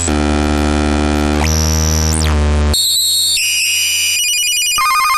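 Homemade electronic noise box sounding through a mixer. A harsh buzzing drone with a high whistle added partway through switches abruptly, under the hand on its toggle switches, to higher beeping and then warbling electronic tones.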